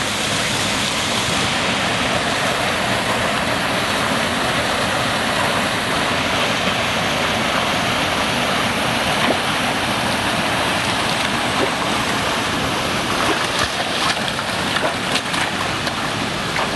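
Steady rush of a small waterfall and stream pouring into a rocky pool, with the light splashing of a dog swimming through the water. A few short sharp splashes and knocks come near the end, as the dog scrambles out onto wet rocks.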